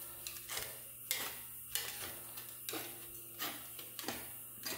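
A small piece of sheet steel is being hand-formed into a rolled edge against the steel pipe of a pipe anvil, clinking and scraping on it in a series of light, irregular clicks, some with a brief metallic ring.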